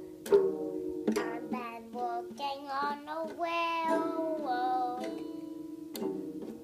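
Small child strumming a toy acoustic guitar, its open strings ringing after each strum, and singing along in a high voice through the middle. The strums fall at the start, about a second in and near the end.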